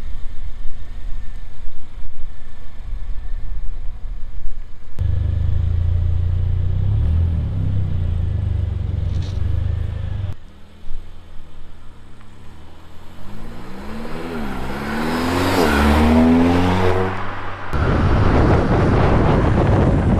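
Mercedes-AMG CLA45's turbocharged four-cylinder engine, fitted with a K&N air filter, running and then accelerating hard, its pitch rising over several seconds. Near the end a loud rushing noise takes over.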